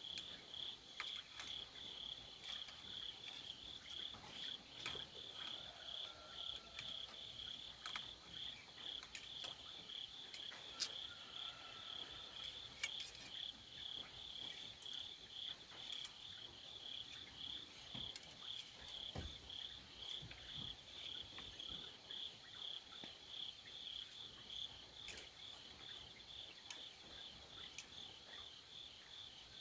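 Crickets chirping steadily in an even, pulsing rhythm of a few chirps a second. There are a few faint clicks, with one sharper click about eleven seconds in.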